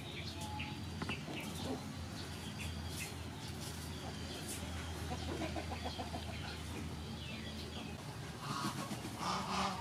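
Chickens clucking, with small birds chirping.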